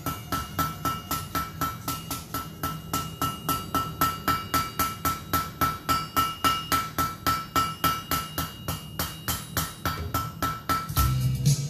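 Hand hammer striking metal on an anvil in a steady rhythm of about three to four blows a second, with a high ring from the anvil on each blow. The hammering stops near the end.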